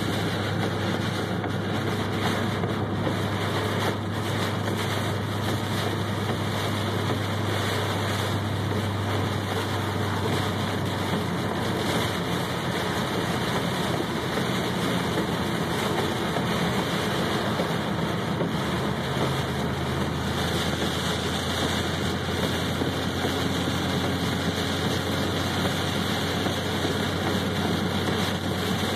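Torrential rain and road spray on a moving car, heard from inside the cabin as a steady hiss over the low, even hum of the engine.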